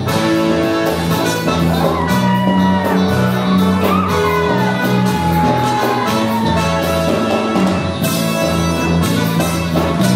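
Live gospel band playing: a steady drum beat over held bass notes, with gliding melody lines above.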